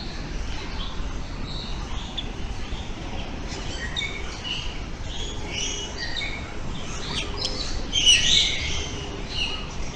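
Several birds of a tropical aviary chirping and whistling in short overlapping calls. The calls get busier about a third of the way in, with the loudest burst around eight seconds in, over a steady low background rumble.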